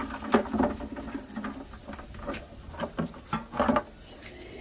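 Live land crabs scrabbling in a plastic bucket, their legs and claws making irregular clicks and scrapes against the sides as one is grabbed by hand.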